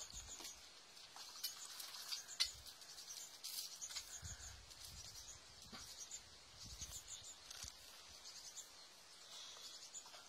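Faint high-pitched chirping in the background, short calls repeating at irregular intervals, with a few soft low bumps.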